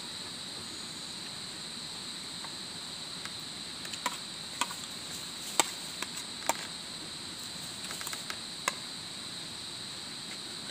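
A steady, high-pitched drone of insects, with a scatter of short, sharp mouth clicks and smacks from someone eating with their hands between about four and nine seconds in.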